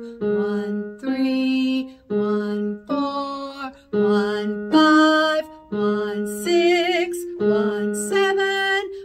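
A woman singing a pitch exercise on numbers: she returns to the same low 'one' between each note, and the other note climbs step by step up the scale (two, three, four … seven). She sings along with a keyboard.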